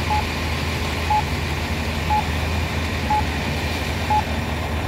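Accessible pedestrian signal at a crosswalk sounding its wait tone: a short, clear beep once a second, five times, over the low, steady rumble of road traffic.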